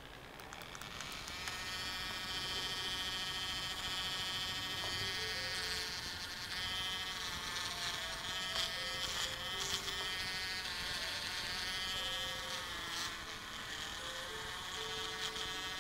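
Handheld rotary tool running with a steady high whine, its white cylindrical bit grinding down a plastic SIM frame. The motor builds up over the first second or two, and its pitch sags briefly a couple of times as the bit bites into the plastic.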